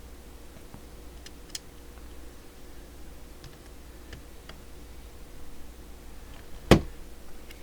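Light, scattered clicks of small hand tools and screws being worked on a CB radio's chassis, with one sharp knock about two-thirds of a second before the end, over a steady low hum.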